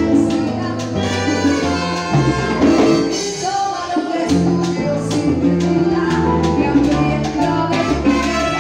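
Live salsa orchestra playing, with brass, a moving bass line and steady percussion.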